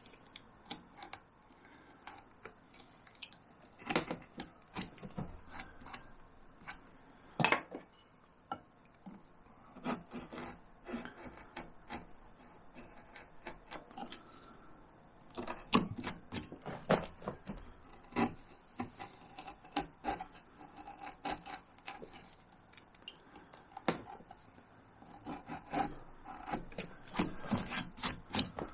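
Hand carving tools, a knife and a palm gouge, cutting into cottonwood bark: irregular short slicing and scraping strokes, with a few louder, sharper cuts.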